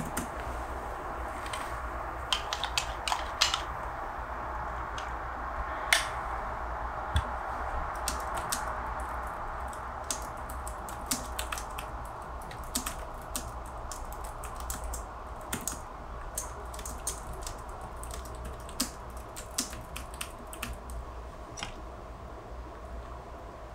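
Typing on a compact white keyboard with round keycaps: short, irregular key clicks in quick runs with short pauses, over a steady background hum.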